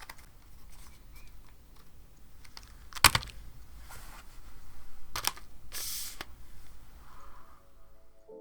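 Typing on a KBD67 Lite custom mechanical keyboard with lubed Black Cherry Pie linear switches on an FR4 plate and GMK-style keycaps: an irregular run of keystroke clacks, with one much louder stroke about three seconds in.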